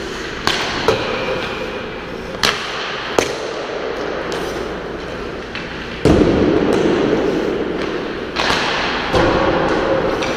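Hockey pucks cracking off sticks in a string of sharp clacks, then heavy thuds of pucks hitting the boards and glass, the loudest about six seconds in and two more near the end, heard through the camera's suction mount on the rear glass. A steady rink hum runs underneath.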